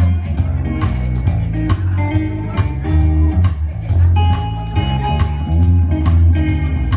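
Live rockabilly band playing: an upright double bass thumps out low walking notes under an electric guitar's melodic lines, with sharp percussive clicks about twice a second.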